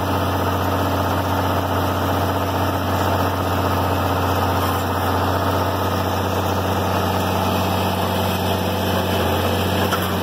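International Harvester 706 tractor engine running steadily at set PTO speed, driving a Vermeer 504C round baler.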